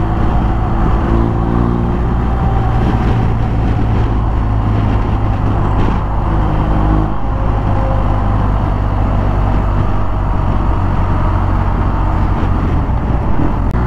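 BMW R1250 boxer-twin motorcycle engine running steadily at highway cruising speed, heard from the rider's seat under a steady rush of wind and road noise.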